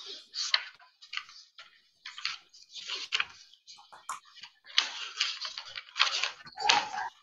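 Sheets of paper rustling and being leafed through in short, irregular bursts, heard over a video call.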